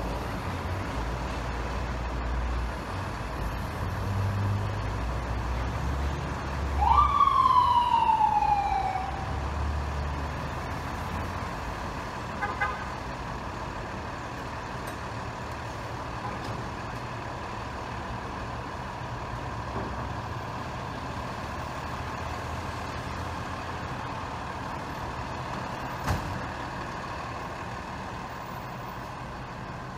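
Street traffic with truck engines running, and about seven seconds in a single loud ambulance siren whoop that jumps up and slides down over two seconds. A few seconds later there is a brief burst of short tones, and near the end a single sharp knock.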